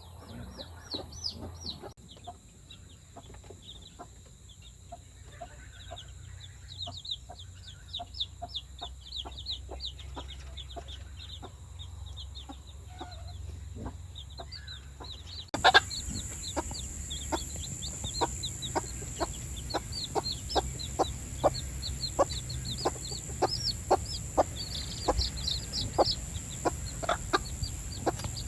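Chickens clucking in a steady run of short calls, with many high chirps over them. Louder from about halfway through.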